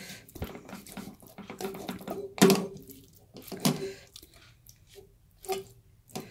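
Fingers rubbing and pressing masala paste onto pieces of fish in a pan of spiced oil: soft, wet squelching and patting, with a few louder knocks about two and a half and three and a half seconds in.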